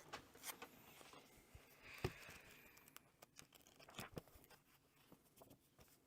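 Faint handling noises of a glue-bound book being checked after its repair: a few soft knocks and paper rustles, the clearest about two seconds in and again about four seconds in.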